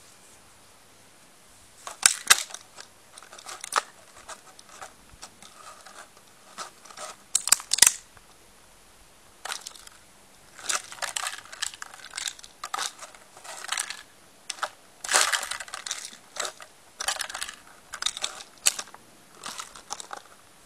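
Beagle biting and pawing a hanging plastic drinks bottle: irregular bursts of plastic crinkling and clattering with sharp clicks, starting about two seconds in.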